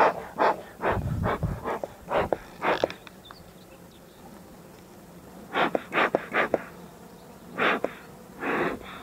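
Hive tool scraping wax and propolis off the wooden parts of a beehive in short rough strokes, a quick run of them in the first three seconds and a few more near the end, over the faint hum of bees.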